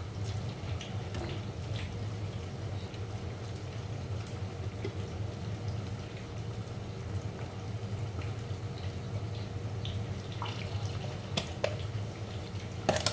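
Fish frying in hot oil: a steady sizzle with scattered small pops over a low steady hum, with a few sharper clicks near the end.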